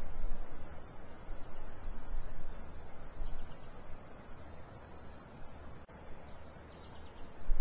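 Insects chirping: a steady high trill with a regular pulsing chirp beneath it, over an uneven low rumble, with a brief dropout about six seconds in.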